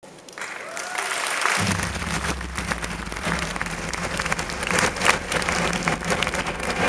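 Audience applauding, a dense patter of many hands clapping. A steady low rumble comes in under it about a second and a half in.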